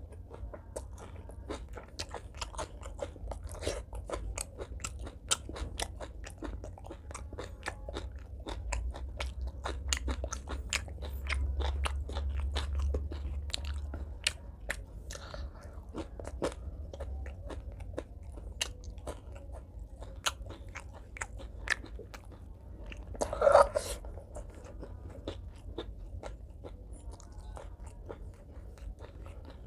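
Close-miked eating sounds: a person biting and chewing crunchy food, green vegetable stems and fried fish, as a steady stream of crisp crackling crunches and wet chewing clicks. One louder mouth sound comes about three-quarters of the way through.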